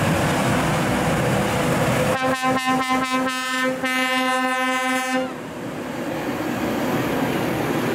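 Air horn sounding, a quick run of short toots followed by one held blast of about a second and a half that cuts off suddenly, over the steady noise of a passing tractor.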